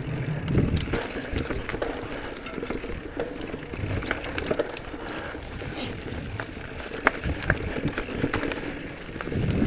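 Giant Trance E+ Pro 2 electric mountain bike riding over a dirt singletrack: tyres rolling on dirt and leaves under a low rumble, with frequent sharp clicks and rattles from the bike over the bumps.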